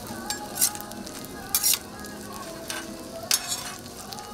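Food frying with a steady sizzle on a flat-top griddle, with three short metal scrapes, the first near the start, one about a second and a half in and one near the end.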